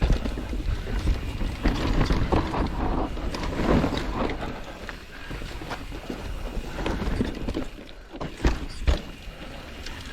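Mountain bike riding down a rough dirt trail: tyres rolling over dirt and loose rock, with irregular knocks and rattles from the bike and wind on the microphone. Two sharp knocks come near the end.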